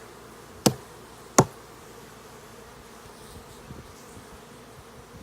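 Honeybees buzzing steadily around an open hive, with two sharp knocks less than a second apart about a second in.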